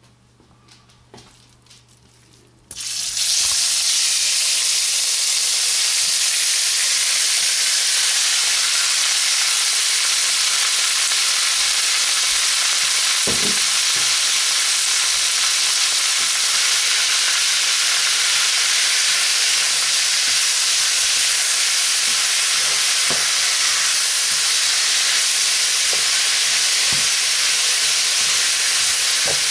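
Sliced beef hitting hot oil in a wok: loud sizzling starts suddenly about three seconds in and then runs on steadily, with a few knocks of the spatula as the meat is stirred.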